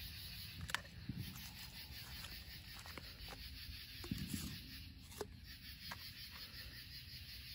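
Faint steady outdoor hiss with a few scattered small clicks and rustles. No firework launch or shell burst is heard.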